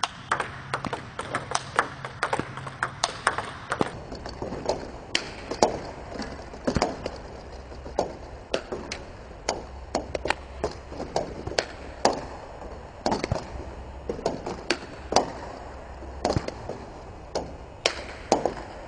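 Table tennis balls clicking in a fast, steady series as they bounce on the table and are struck with the bat in a multi-ball drill: backspin balls fed one after another and returned with backhand topspin strokes.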